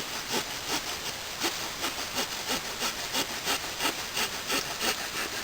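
Swiss Army Knife saw blade sawing through a wooden stick in quick, even back-and-forth strokes, about three a second.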